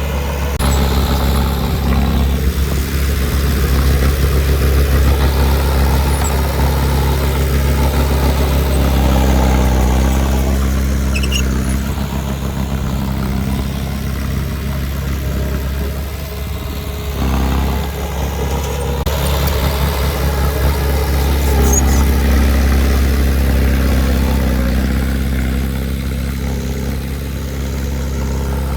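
Diesel engine of heavy earthmoving equipment running steadily at a low, even pitch, with a brief dip in level a little past halfway.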